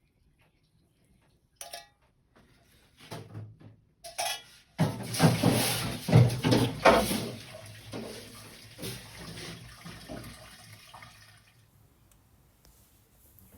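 Dishes and utensils clattering in a kitchen sink, with tap water running from about five seconds in for several seconds before it shuts off; a few separate knocks come first.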